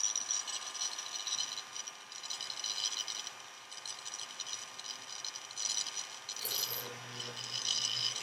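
Small handheld mini drill running, boring a hole in a plastic model's deck, with a high whine that fades and returns a few times. A low hum joins about six and a half seconds in.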